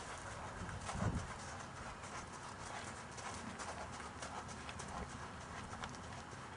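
Hoofbeats of a horse walking on soft sandy arena footing: a steady, muffled clip-clop rhythm. There is a low thump about a second in.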